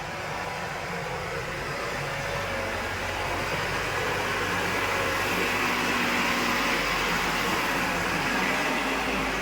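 Backhoe loader's diesel engine running steadily under work, slowly growing a little louder through the first half.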